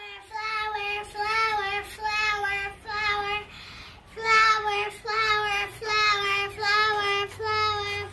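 A child singing a tune in a string of held notes, with a short pause a little before halfway.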